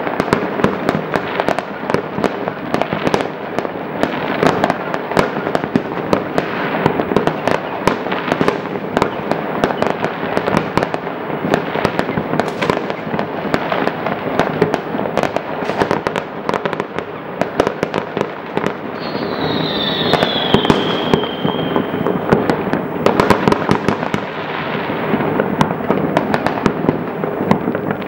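Fireworks going off all across a town at once: a constant, dense crackle of bangs and pops, with one whistle gliding down in pitch about two-thirds of the way through.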